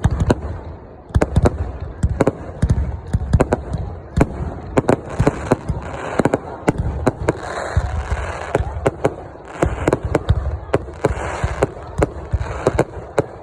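Fireworks display: a rapid, continuous run of sharp bangs and deep booms from bursting aerial shells, with patches of crackling hiss between them.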